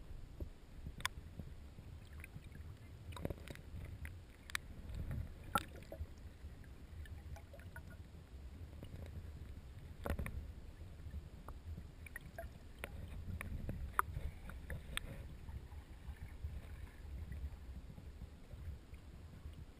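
Muffled low rumble of water moving past a waterproof camera housing held underwater from a moving kayak, with scattered sharp clicks and knocks.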